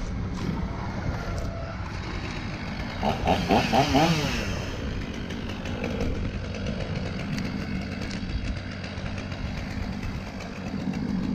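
Small two-stroke engine, most likely a chainsaw, running steadily, with a louder, wavering burst about three to four seconds in.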